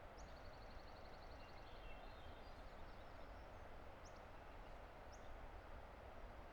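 Faint, steady rushing of a distant river, with birds calling over it: a rapid high trill lasting about a second and a half at the start, then a few short high chirps.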